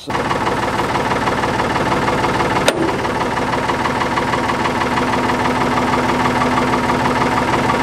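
Ford backhoe engine running steadily at idle. There is one sharp click about two and a half seconds in, and a steady low hum joins in for the last few seconds.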